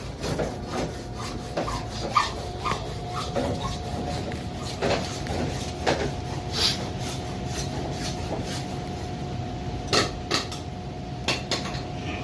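Hands working a PVC pipe fitting, wrapping it with thread-sealing pipe tape: irregular small clicks, taps and rubbing, over a steady faint hum.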